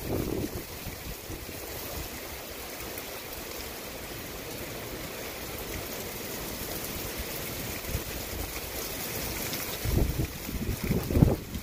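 Steady rain falling in a storm, an even hiss of rainfall, with gusts of wind buffeting the microphone briefly at the start and again near the end.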